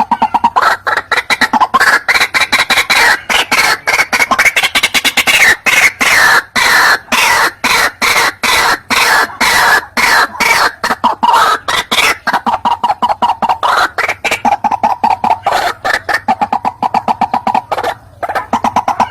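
White-breasted waterhen (ruak-ruak) calling in a lure recording: a fast, harsh run of repeated calls, about five a second. It climbs higher in pitch for a while in the middle, then drops back lower, with a brief break near the end.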